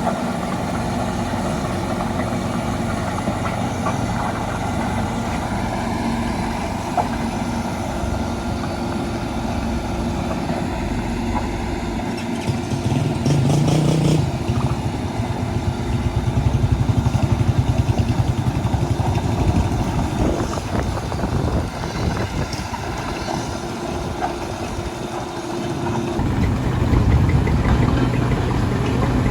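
Heavy construction machinery's diesel engines running, louder and with a fast even pulsing through the middle, easing off, then rising again near the end.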